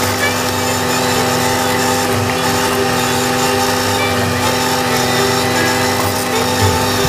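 Valtra A93 tractor's diesel engine running at a steady speed, driving a rear-mounted Agrimaster KP2600 flail mower through tall grass, with a constant pitched hum from the engine and driveline.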